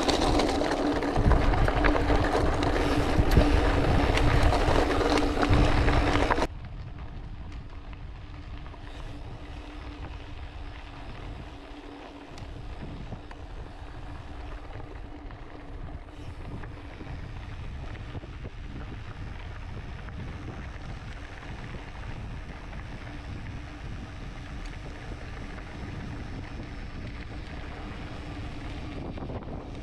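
Mountain bike rolling over a gravel track: tyre noise and wind buffeting the microphone, with a steady low hum under it. The noise drops sharply about six seconds in, and a quieter rolling and wind hiss carries on.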